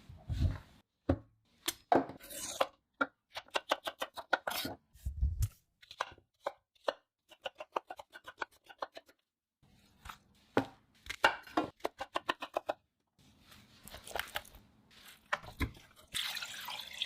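Kitchen knife chopping food on a cutting board in quick runs of several strokes a second, between scattered knocks and handling clatter.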